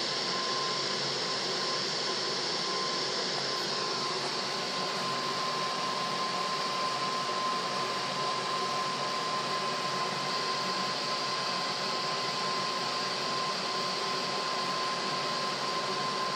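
Multi-jet brass-headed gas burner hissing steadily as its jets burn HHO gas and hexane, with the compressed air feed turned off. A thin steady whistle-like tone runs through the hiss.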